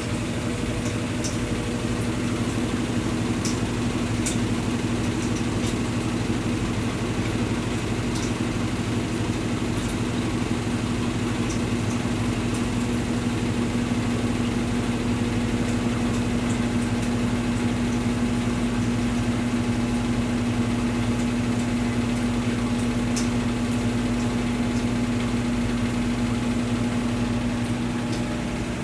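Brastemp Tira Manchas Pro 12 kg washing machine in its spin cycle, loaded with blankets and a sofa cover: a steady motor hum at constant speed, with faint light ticks now and then.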